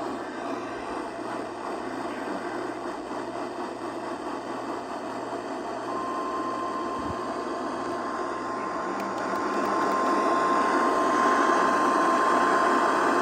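Weather radio receiver hissing with static. About halfway through, a single steady high tone comes in and holds, growing louder near the end: the NOAA Weather Radio 1050 Hz warning alarm tone that comes before a warning is read.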